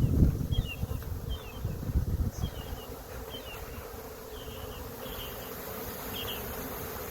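A honey bee swarm buzzing steadily in a dense, continuous hum from the many bees in the air, with low rumbling in the first two seconds.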